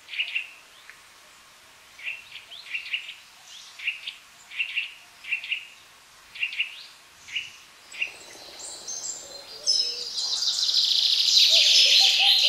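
Forest birds calling: one bird repeats short, sharp call notes about once or twice a second. From about eight seconds in, a denser and louder chorus of higher-pitched birdsong builds up, with some lower, deeper notes mixed in.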